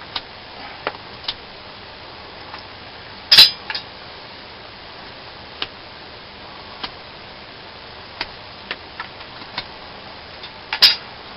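A knife blade shaving curls from a stick of wood in sparse strokes, heard as scattered light clicks and ticks, with two much louder sharp knocks, one about three and a half seconds in and one near the end.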